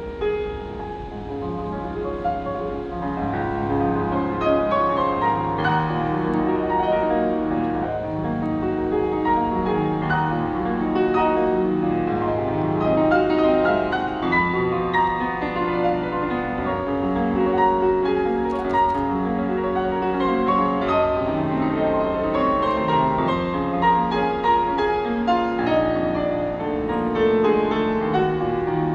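Grand piano played solo: a continuous passage of many notes in quick succession, at a fairly even level.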